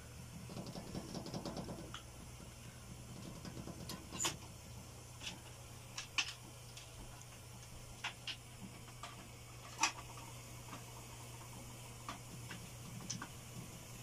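LG front-load washing machine, fitted with new drum bearings and tub seal, running at the start of a wash cycle: a faint steady low hum with a brief stretch of rapid pulsing about a second in, and scattered sharp clicks and ticks.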